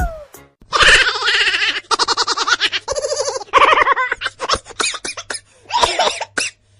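Laughter: rapid pulsing bursts of high, voiced 'ha' sounds in several long runs, thinning out into short scattered bursts in the second half.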